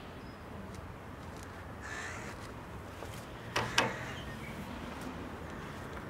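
A crow gives a single harsh caw about two seconds in. A little over a second later come two sharp knocks close together, the loudest sounds.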